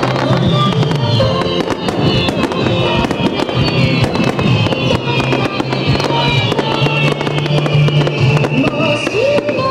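Starmine fireworks display: rapid shell bursts and dense crackling, with music playing along under the bursts.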